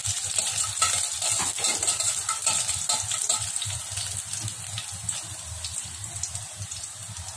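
Mustard seeds and green chillies sizzling and crackling in hot oil in a stainless steel kadai, with a metal spoon stirring through them: a tempering (oggarane). The crackle slowly dies away as the pan cools with the stove switched off.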